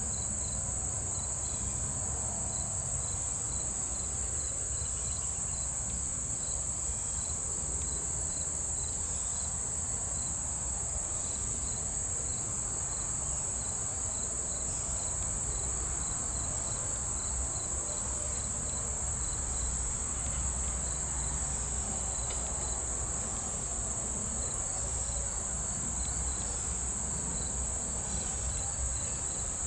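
A steady, high-pitched chorus of summer insects, unbroken throughout, with a fainter chirp repeating about twice a second and a low rumble beneath.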